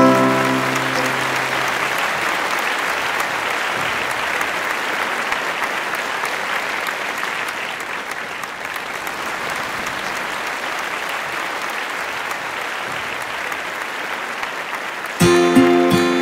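Applause, a steady clapping that sets in as the plucked-string ensemble's final chord of mandolins, guitar and mandocello dies away in the first two seconds. About 15 s in, strummed plucked-string music starts abruptly.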